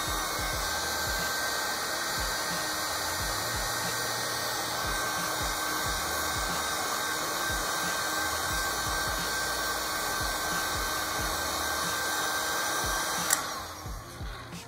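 Electric heat gun blowing steadily with a faint steady whine as it shrinks a heat-shrink sleeve onto a battery cable lug. It is switched off with a click over a second before the end, and the blowing dies away, leaving a few small handling knocks.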